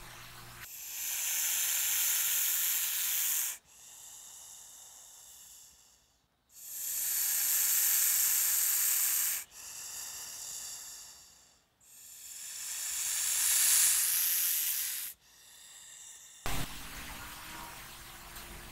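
A snake hissing: three long, loud hisses of about three seconds each, with quieter hissing between them.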